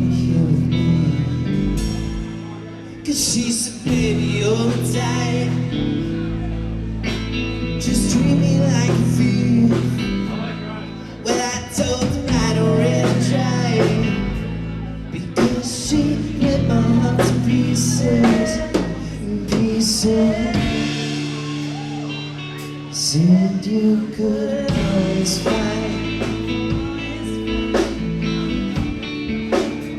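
Live band playing a song: guitar and drums with steady low bass notes, and a singer's voice coming in and out over them.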